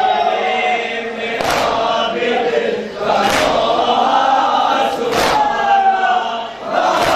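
A crowd of men chanting a noha (Shia lament) together, punctuated by a sharp collective slap of hands on chests (matam) about every two seconds.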